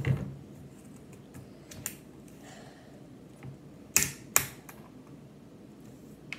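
Plastic screw cap of a Body Armor sports drink bottle being twisted open: a thump at the start as the bottle is set down on the wooden table, a few faint clicks, then two sharp cracks about four seconds in as the cap's seal breaks.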